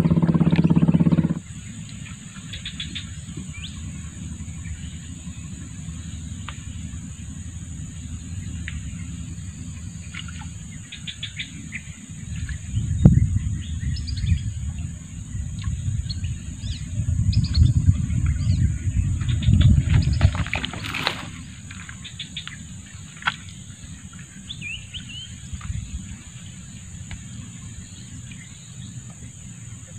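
Swamp ambience: birds chirping over a steady high-pitched drone, with stretches of low rumbling in the middle and a sharp click about two-thirds of the way in.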